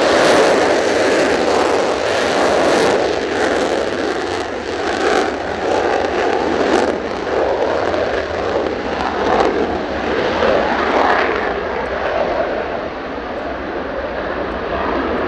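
Mitsubishi F-2 fighter's F110 turbofan at full afterburner on takeoff: loud, rough jet noise with crackling through the first half. The sound grows duller after about seven seconds as the jet climbs away.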